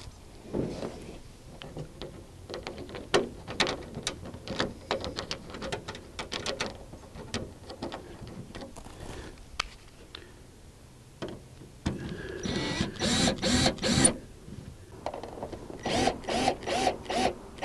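Scattered clicks and knocks as screws and the plastic air-conditioner shroud are handled, then a cordless drill driving the shroud screws in short pulsed runs, about four pulses a second, starting about two thirds of the way in and again near the end.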